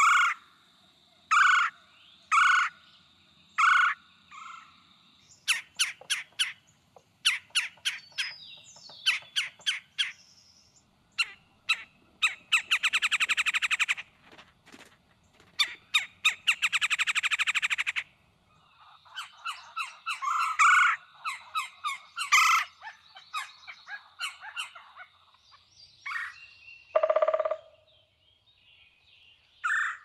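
Red-bellied woodpecker calling: a series of short, harsh 'chuck' calls repeated about once a second, then two long, rapid rolling 'thurr' trills, then more calls.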